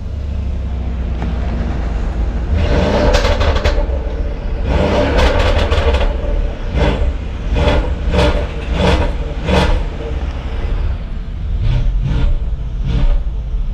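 Mercedes S550's twin-turbo V8 with catless downpipes and a Stage 2 tune, idling and revved in a series of throttle blips, heard from the driver's seat with the windows down. Two longer revs come first, then a string of quick blips about one every three-quarters of a second.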